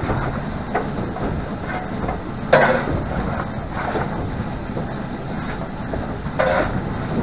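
Four-cylinder GWR King class steam locomotive 6023 'King Edward II' rolling slowly over the rails, heard from its cab. A steady rumble, with two sharp knocks, one about two and a half seconds in and one near the end.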